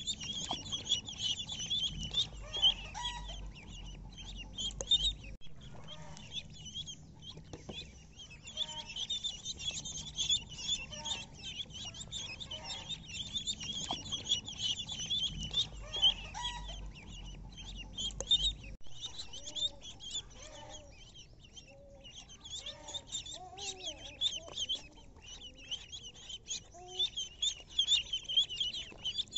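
A flock of ducklings peeping constantly, a dense high-pitched chirping. Lower, short curved calls join in from about two-thirds of the way through. A low rumble is heard twice.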